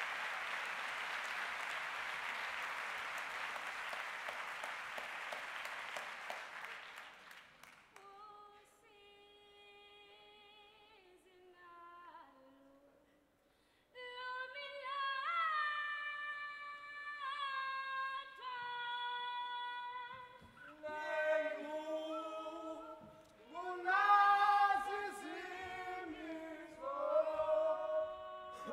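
Audience applause dying away over the first several seconds, then an unaccompanied female voice starts singing, faint at first and stronger about halfway through. Near the end a choir joins in, singing a cappella in harmony beneath her.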